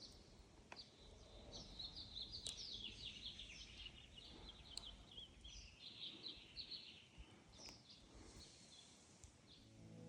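Small birds chirping in quick runs of short high notes, faint, busiest through the middle and thinning out near the end, over a low background hiss.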